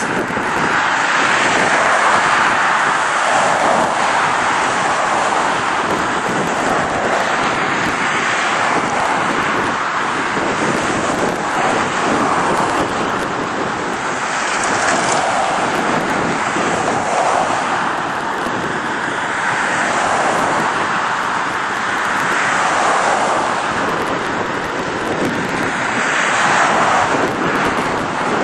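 Road traffic: cars passing one after another on a busy street, a continuous tyre and engine noise that swells and fades every few seconds.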